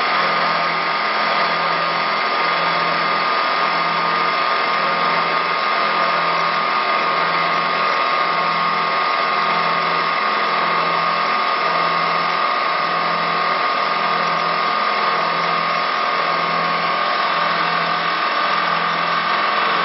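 CNC wood turn-broaching lathe running, a steady whirring machine noise with a high whine and a low hum that pulses about once a second.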